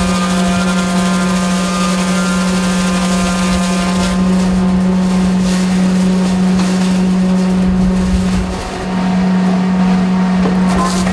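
Morbark PS8 stationary post peeler running, its electric-driven cutterhead giving a loud, steady drone with a strong single hum. A higher hiss thins out about four seconds in, and the drone dips briefly near the end.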